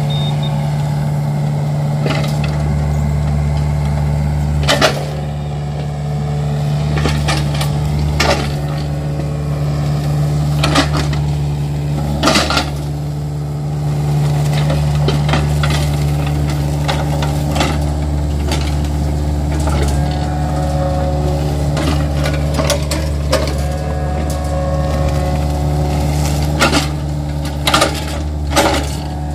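Yanmar mini excavator's diesel engine running steadily under work, with a string of sharp cracks and snaps as palm fronds and stems break under the arm and tracks.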